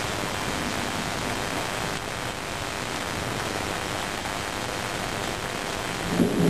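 Steady rain falling during a thunderstorm. A sudden loud crack of thunder breaks in near the end.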